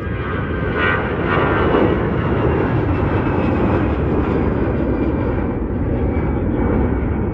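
Twin-engine Airbus A320-family jet airliner climbing out just after takeoff, its engines at takeoff thrust making a loud, steady rumble with a thin whine over it, swelling about a second in.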